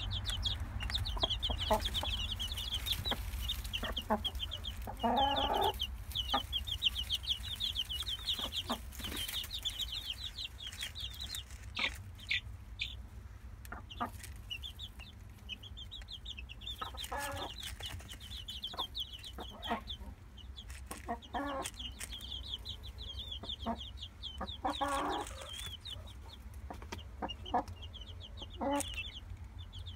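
Polish Tolbunt chicks peeping in rapid, high, near-continuous chirps, with their broody Salmon Faverolles mother hen giving short low clucks several times.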